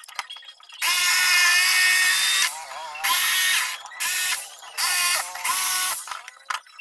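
Electric jigsaw cutting plywood in several runs: one long run of about a second and a half, then four short bursts, the motor whine dropping in pitch each time the trigger is let go.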